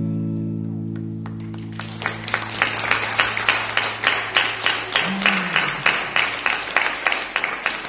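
Electric guitar chord ringing out and slowly fading. About a second and a half in, audience applause starts and builds into steady clapping.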